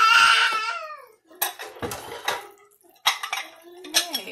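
A metal spoon clinks and scrapes against a saucepan as cooked chicken pieces are scooped out, in a series of sharp knocks after the first second or so. It is preceded by a loud, high squeal that slides down in pitch.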